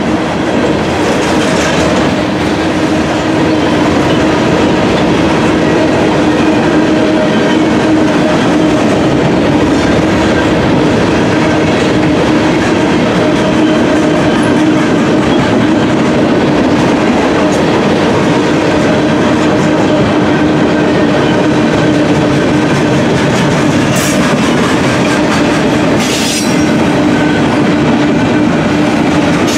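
Two loaded freight trains passing each other on adjacent tracks: steel flatcars carrying steel coils and covered hoppers rolling by, their steel wheels clattering steadily over the rails. A steady droning tone runs underneath, with two sharp clicks near the end.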